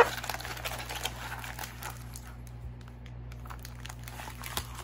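Clear plastic film on a rolled diamond-painting canvas crinkling as the canvas is unrolled and flattened by hand, in scattered soft crackles, thicker in the first couple of seconds.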